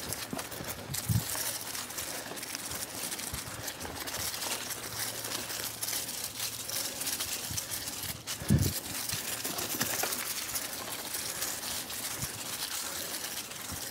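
Mountain bike tyres rolling over fallen leaves on a dirt single-track trail: steady crackling and crunching with many small clicks. Two low thumps come from bumps in the trail, about a second in and again about eight and a half seconds in.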